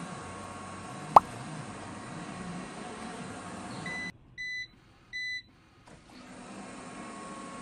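Robot vacuum running with a steady whir, broken by one sharp knock about a second in. Past the middle the whir cuts out and the vacuum gives two short electronic beeps; the whir starts again near the end.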